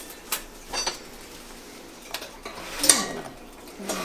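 Metal kitchenware clinking: a handful of separate sharp clinks and knocks, the loudest about three seconds in.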